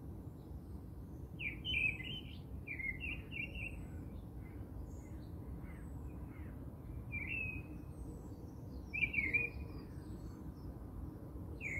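Birds chirping: clusters of short, quick chirps every second or two, loudest about two seconds in and again about nine seconds in, over a low steady background noise.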